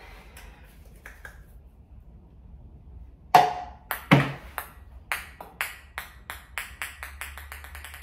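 A ping-pong ball lands with two loud hits, then bounces on a table in faster and faster, fainter bounces until it settles near the end.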